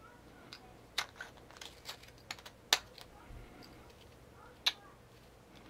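Small aluminum LED flashlight handled and screwed together: scattered sharp clicks and taps of metal parts and batteries knocking, the loudest a little under three seconds in.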